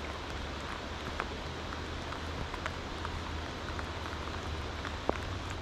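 Rain falling on a river's surface: a steady hiss with scattered sharp ticks of single drops, over a low steady rumble.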